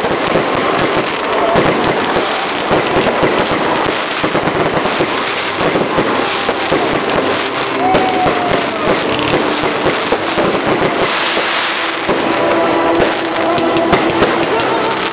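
Fireworks display going off: a continuous rapid barrage of sharp bangs and crackling from the shells bursting overhead.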